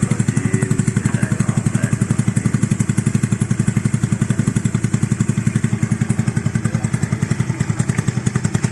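Honda Vario 110 scooter's single-cylinder four-stroke engine, bored to 130cc, idling steadily through an ABF Racing Oval R-Series aftermarket full-system exhaust with a half baffle. It gives an even, rapid exhaust pulse.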